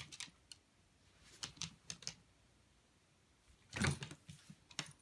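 A dog mouthing its toy on a carpet: irregular light clicks and taps, with one louder knock about four seconds in.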